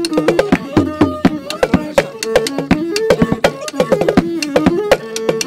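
Music with a fast, busy drum beat under a melody that moves in steps between held notes.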